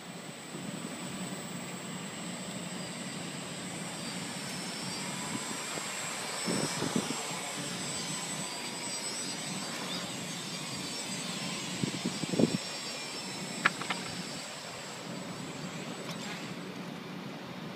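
Quadcopter with DJI brushless motors flying, its propellers giving a steady buzzing whine whose pitch wavers slightly as the throttle changes. A few short knocks partway through, the loudest about two-thirds of the way in.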